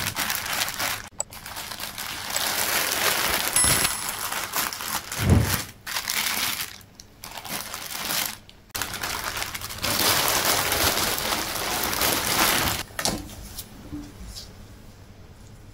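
Clear plastic polybag crinkling and rustling in irregular bursts as gloved hands open it and pull a wool sweater out, with a dull thump about five seconds in. It turns to much quieter soft rubbing near the end.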